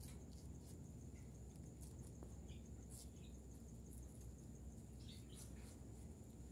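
Near silence: a low steady background hum with a faint high steady tone and a scattering of faint soft ticks and rustles.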